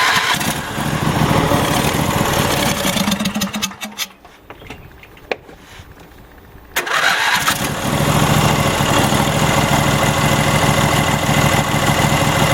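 Troy-Bilt riding mower's 26 hp Briggs & Stratton engine being cranked on the key for a few seconds, falling quiet, then cranked again about seven seconds in; it catches and settles into steady running. The mower had been bought as a no-start.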